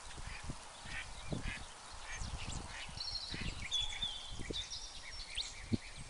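Many wild birds calling at once: quick chirps and whistles with a couple of longer held notes, over irregular low rumbles and thumps.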